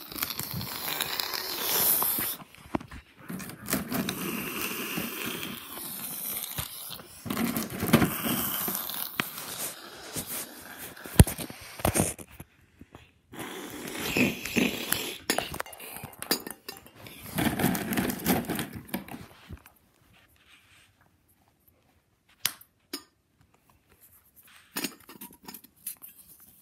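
Rustling, scraping and clattering as felt toy food and a small steel bowl are handled and knocked about close to the microphone, in a run of noisy bursts. After about twenty seconds it thins to scattered light clicks and taps.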